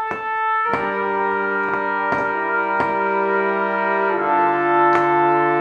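Background music: held brass chords that change about a second in and again near four seconds, with regular sharp hits under them.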